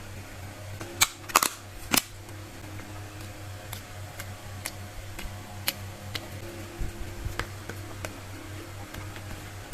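Slime being squeezed and pressed by hand, giving sharp pops and clicks: a few loud pops in the first two seconds, then softer scattered ones, over a steady low hum.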